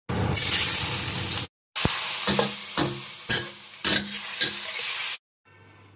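Food stir-frying and sizzling in a hot pan, with a spatula knocking against the pan about twice a second while stirring. The hiss breaks off twice for a moment.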